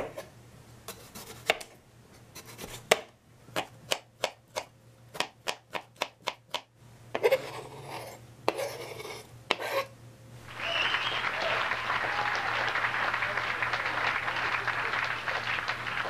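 Kitchen knife chopping a cucumber on a cutting board: a run of sharp knocks that come faster, about three a second, then the knife scraping the diced pieces off the board into a bowl. For the last five seconds or so a steady hiss takes over, louder than the chopping.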